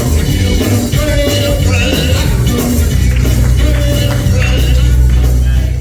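Gospel music with singing over a heavy bass line and drums; the music drops away right at the end.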